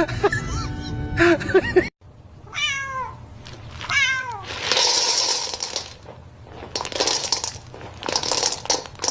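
A domestic cat meowing twice, each meow falling in pitch, followed by several seconds of rough, noisy bursts. Music plays at the start and cuts off abruptly.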